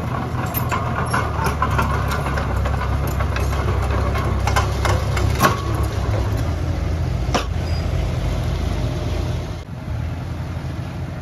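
Heavy-equipment diesel engine running steadily, with scattered metallic clanks and knocks over it for most of the first seven seconds. The sound dips briefly near the end.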